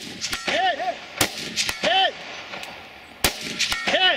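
Rifle shots fired singly, about two seconds apart, with fainter sharp cracks in between. A short pitched call follows each main shot.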